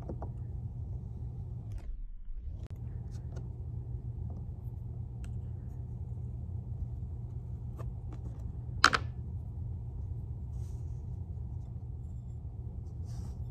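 Steady low room hum with faint scratching of a pencil tip cutting through a soft clay slab around a bowl, and one sharp click about nine seconds in.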